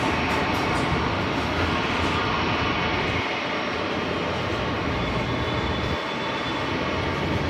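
Jet airliner engines running, a loud, steady, even rush with no clear change in pitch.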